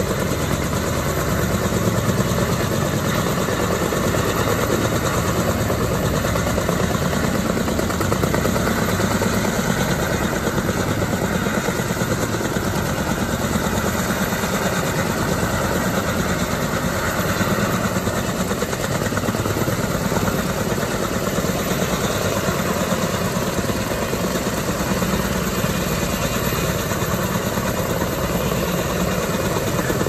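Kaman K-MAX helicopter, with intermeshing twin rotors, hovering with a load on a long line: steady rotor chop and engine noise.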